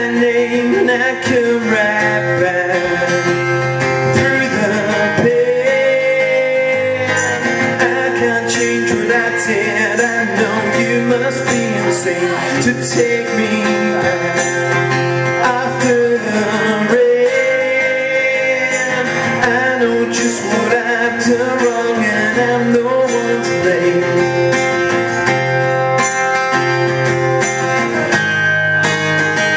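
A man singing a slow song to his own strummed acoustic guitar.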